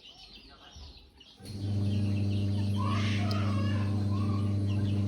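Chickens peeping and clucking faintly, then about a second and a half in a loud steady electrical hum switches on and holds, with the birds still calling over it.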